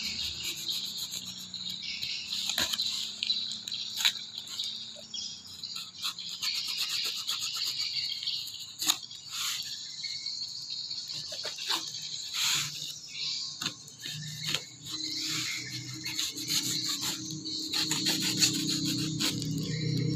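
Knife blade slitting and scraping through plastic packing tape on a cardboard box in short irregular strokes, with cardboard tearing toward the end. A steady high insect chirr runs underneath, and a low hum comes in about three-quarters of the way through.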